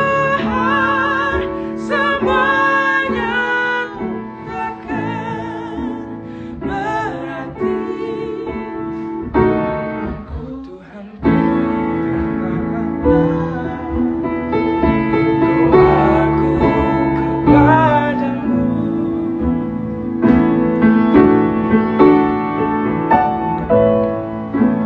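A slow Christian worship song sung with piano accompaniment, the voice wavering with vibrato on held notes. There is a short break about ten seconds in.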